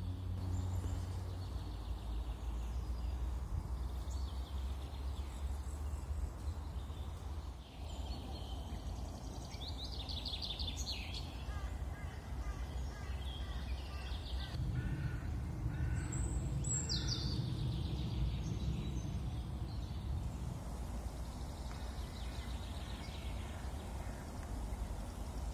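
Outdoor ambience: small birds chirping and singing now and then, with a couple of quick falling trills, over a steady low rumble.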